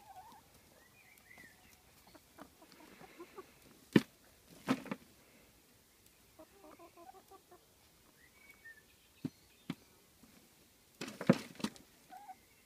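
Chickens clucking softly in short, broken runs, with a few faint higher chirps. Sharp knocks cut in, a loud one about four seconds in and a cluster near the end.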